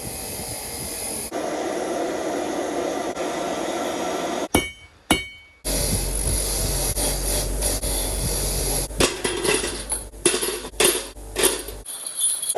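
Metalwork on steel buckles: sharp hammer strikes and clinks on steel, some with a short metallic ring, over steady workshop noise that changes abruptly several times. Two ringing strikes come about halfway through, then a quick run of five or six strikes near the end.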